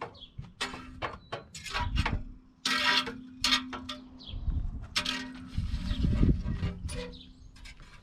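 Handling noises: a quick series of rustles, crinkles and clatters, over a faint steady low hum.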